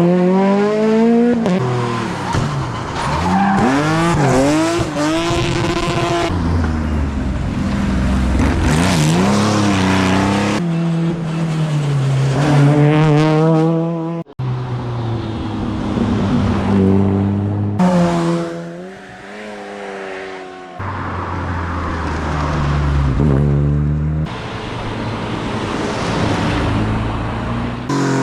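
Rally cars driven hard on a stage, engines revving up and dropping back through gear changes as they pass, in a series of short separate passes cut one after another.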